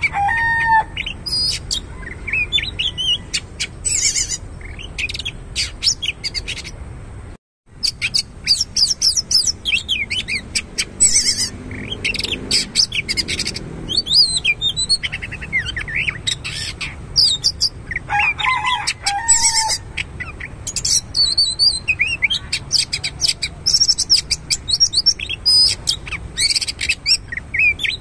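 Oriental magpie-robin singing a long, varied song of clear whistles and rapid chirps, with a brief break about seven and a half seconds in.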